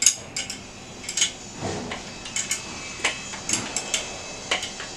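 Irregular metal clicks and clinks of a spanner working an M6 nut and bolt tight on a metal hose reel frame, with a duller thud about a second and a half in.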